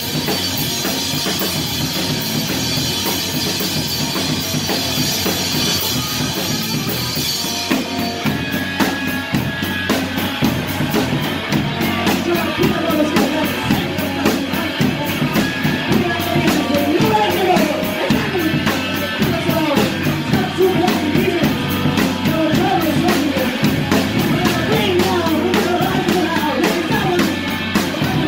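Loud live rock band heard from right beside the drum kit. For about the first eight seconds a dense cymbal wash dominates, then the drums switch to fast, driving hits, and vocals come in a few seconds later.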